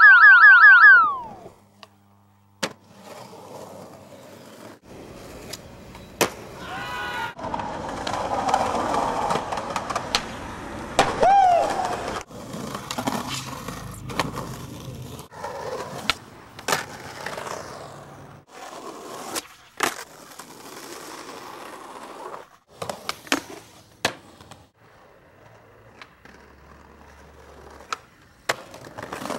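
Skateboard on concrete: wheels rolling, sharp tail pops and board landings, and trucks grinding on ledges, heard across a series of separate clips with abrupt cuts. A springy, bouncing sound effect fades out in the first second or so.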